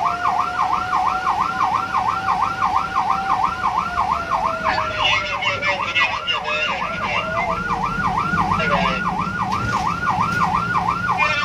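Emergency siren on the fire truck ahead, heard from inside a following car, sounding a fast yelp that warbles up and down about four times a second. A second, lower siren tone slowly falls in pitch through the first half or more. A low engine and road rumble runs underneath.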